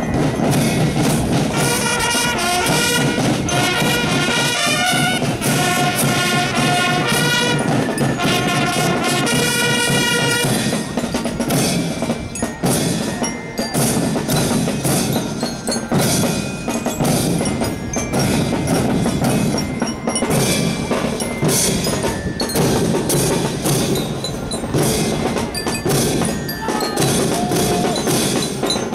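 School marching band (banda de guerra) playing: a melody over snare and bass drums for about the first ten seconds, after which the drums carry on mostly alone with only a few melody notes.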